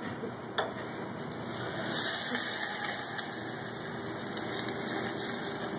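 Hot water ladled into a hot saucepan of toasted rice and vegetables, hissing as it hits the pan, loudest about two seconds in, over a steady background rush; a ladle clicks once near the start.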